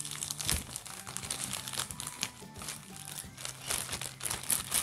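Paper and plastic packaging crinkling and rustling as it is handled, with background music underneath.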